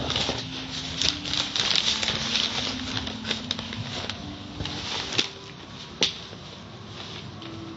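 Tunnel car wash heard through the viewing windows: water spray hissing and spinning brushes pattering and clicking, busiest for the first five seconds and then quieter. Two sharp knocks stand out about five and six seconds in, and a faint tune plays underneath.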